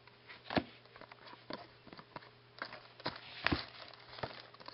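Trading cards being handled and flipped through by hand: a scattering of light, irregular taps and flicks as the cards are shuffled and moved.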